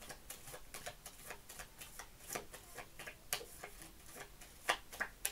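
Deck of tarot cards being shuffled by hand: a quick, irregular run of soft card clicks and flicks, with a few sharper snaps in the last two seconds.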